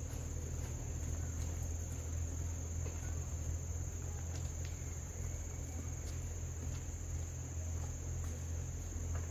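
Insects trilling in one unbroken high-pitched tone, over a steady low rumble.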